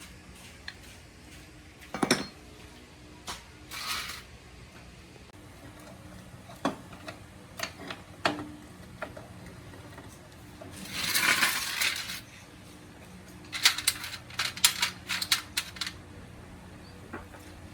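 Small hard metal objects clinking and tapping at irregular intervals. Just past the middle there is a short scraping rustle, then a quick run of clinks.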